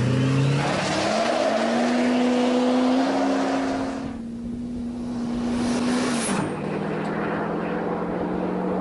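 Chevy Silverado diesel pickup accelerating hard at full throttle off a drag-race launch. The engine note climbs in steps in the first second or so, holds steady, then drops to a lower note about six seconds in.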